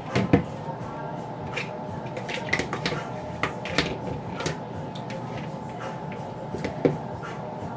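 Wet curly hair being dipped in a bowl of blended aloe vera gel and water and squeezed through by hand, giving irregular small squelches and splashes, with a knock near the start. A steady hum runs underneath.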